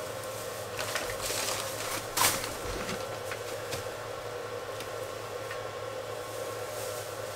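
Steady machine-like background hum, with a few brief rustles of handling and one sharp knock about two seconds in.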